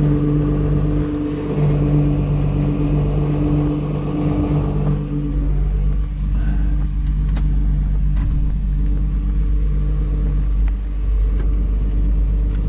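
Engines running during a river ferry crossing: a steady low rumble with a hum that throbs about once a second for the first five seconds, then runs steady.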